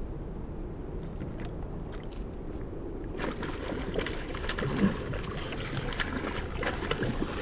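Low wind rumble on the microphone, then from about three seconds in a pike splashing and thrashing at the surface close to the bank on a topwater lure, the loudest splash a little under two seconds after it starts.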